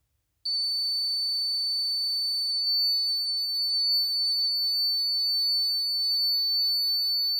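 A homemade fire alarm's 12 V buzzer, set off in a test, sounds one steady high-pitched tone that switches on about half a second in and holds without a break.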